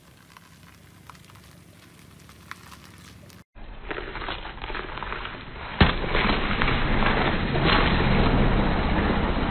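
Car tyre rolling onto a whole watermelon: a sharp crack as the rind bursts a little over halfway through, then several seconds of loud wet crunching and crackling as the tyre squashes the flesh against rough asphalt. Before that, a few seconds of quiet with faint small ticks.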